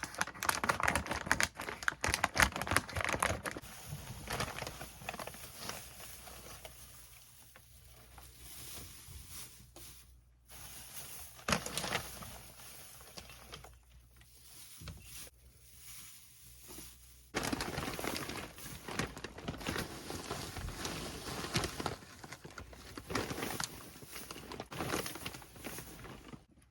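Guinea pigs moving about: rustling and crinkling with light pattering, over several short clips with abrupt changes about ten and seventeen seconds in.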